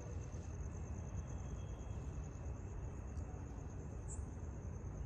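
A steady, high, pulsing insect trill, like crickets, over a low rumbling background noise.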